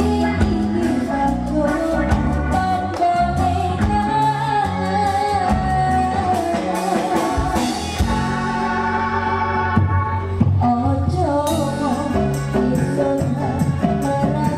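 A woman singing a melody into a microphone, backed by a live amplified band of keyboard, electric guitar, bass guitar and drum kit playing a steady beat.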